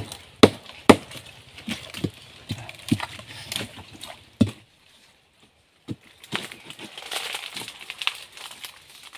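Machete chopping into a wet, mud-caked tree trunk: three sharp chops in the first second, then a run of lighter chops and knocks. After a brief pause, scraping and digging in wet mud and wood.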